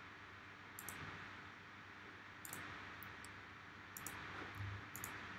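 Faint, scattered clicks of a computer mouse and keyboard, about six of them, some doubled like a press and release, over a low steady hiss.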